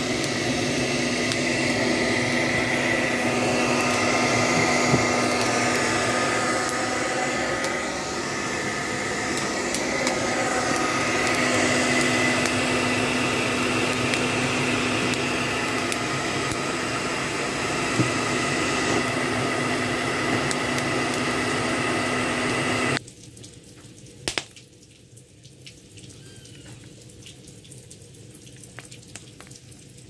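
Hair dryer running steadily, its motor and fan blowing air to fan a wood-stove fire, then switched off suddenly about three-quarters of the way through. After it stops, only faint clicks and crackle from the fire remain.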